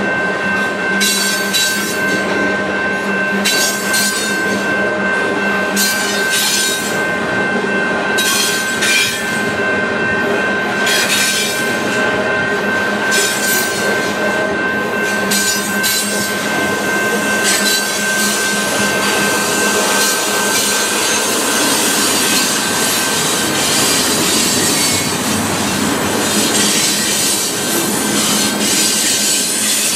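Freight cars of a long mixed train rolling past: a steady rumble of steel wheels on rail with a sustained high wheel squeal, and in the first half a run of clicks every second or two as wheels cross rail joints.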